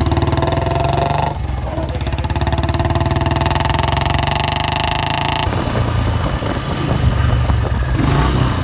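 Motorcycle engine running loudly through a long-bottle exhaust, a fast, even exhaust beat whose tone shifts a couple of times.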